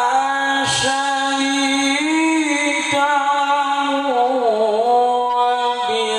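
A male qari reciting the Qur'an in the melodic tilawah style into a handheld microphone: long sustained notes with slow pitch bends and ornamental wavers, broken only by a brief pause for breath about a second in.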